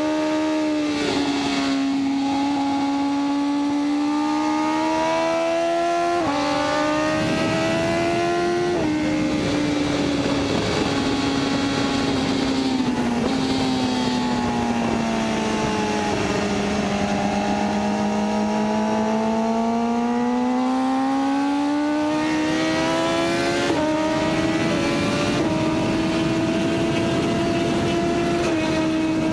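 BMW S1000RR's inline-four sport-bike engine under hard throttle on track. Its pitch climbs and drops back at each gear change, sags slowly in the middle, then climbs again as the bike accelerates. Wind rushes over the microphone underneath.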